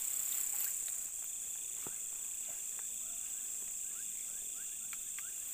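Night insect chorus: crickets trilling steadily in a high band, with scattered faint clicks and short chirps over it.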